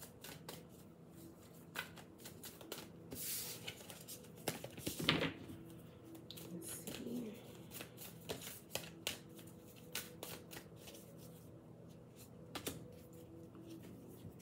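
A deck of tarot cards being shuffled by hand: a continuous run of soft flicks and taps as the cards slide and strike, with a louder one about five seconds in.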